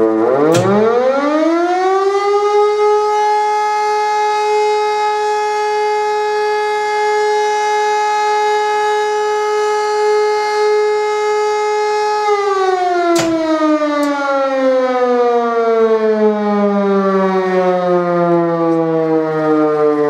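Electromechanical siren, driven by a Hörmann SSG IV control unit, giving one blast of the German fire-alarm signal (Feueralarm). It winds up over about two seconds, holds a steady wail for about ten seconds, then winds down slowly as it coasts to a stop. Sharp clicks come near the start and twice about a second into the wind-down.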